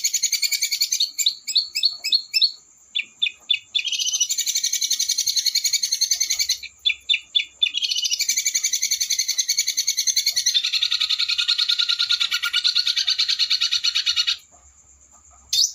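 A small songbird's harsh, very fast rolling trill, in long unbroken runs broken twice by short bursts of separate, spaced notes, with a pause of about a second near the end.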